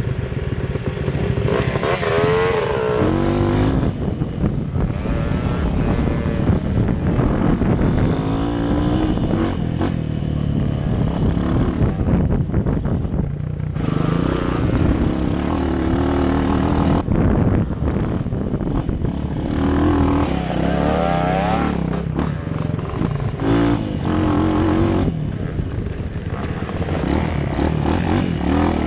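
Dirt bike engine running and revving as it is ridden over a trail, its pitch rising and falling again and again with the throttle.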